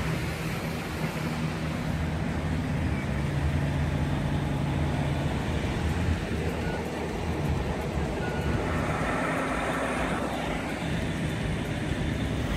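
Heavy-haul truck engines running steadily as a long multi-axle trailer train carrying an oversized load rolls slowly past, a low engine drone with road rumble. The drone's low steady tones fade after about five seconds, leaving an even rumble with some hiss.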